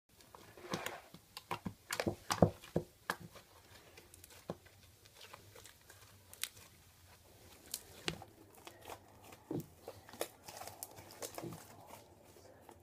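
Fluffy slime being squeezed and pressed by hand, making irregular sticky crackles and small pops, thickest in the first three seconds and sparser after.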